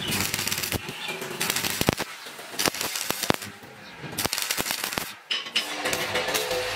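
Stick arc welding on square steel tubing: the electrode's arc crackles and sizzles in an irregular stream of sharp pops. It drops away briefly about three and a half seconds in and again near five seconds, then strikes up again.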